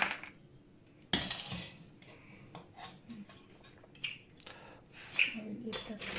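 Metal spoon clinking and scraping against a stainless steel pan and a china plate while boiled crabs are scooped out of the broth: irregular sharp clinks, the loudest about a second in.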